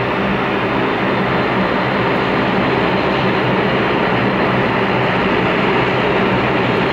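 Jet noise from the four Pratt & Whitney PW4000 turbofans of a Boeing 747-400LCF Dreamlifter at takeoff power as it climbs out: a loud, steady rumble with a low hum of steady tones and a faint high whine.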